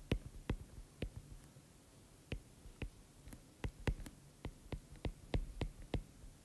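Stylus tip tapping on a tablet's glass screen while handwriting an equation: a run of irregular light clicks, a few per second.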